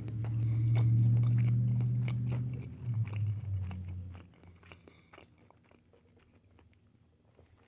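Close-miked chewing and biting of food, with mouth clicks and a low hummed "mmm" over the first three seconds or so. The chewing stops about four to five seconds in.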